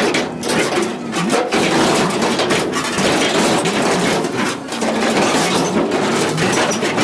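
Rusted corrugated-steel shipping container being torn and crushed by a grapple truck's claw: continuous grinding and crunching of sheet metal, with many sharp clanks and low, wavering groans as the panels bend.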